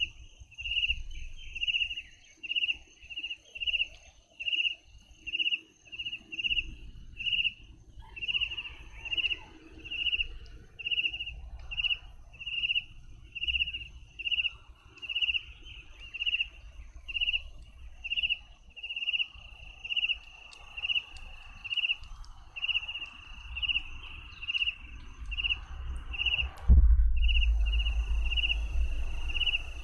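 A cricket chirping steadily, about three evenly spaced chirps every two seconds. Near the end there is a single sharp knock, followed by a louder low rumble.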